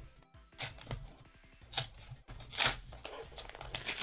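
Packaging being torn open by hand: a series of short tearing rips, with the loudest a little under two seconds in and again about two and a half seconds in.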